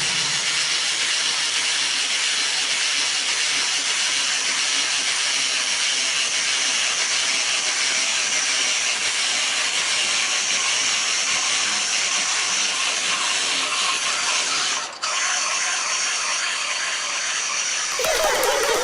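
A steady, high-pitched hiss, broken by a brief drop about 15 seconds in. A different sound with a pitched tone comes in near the end.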